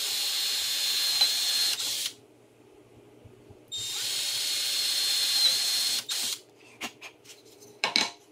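Handheld cordless drill running in two bursts of about two seconds each, with a steady whine and a short pause between. A few short knocks follow near the end.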